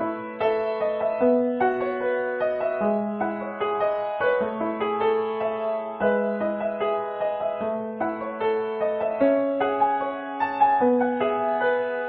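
Instrumental background music: a slow melody of held notes over a lower line that changes every second or two.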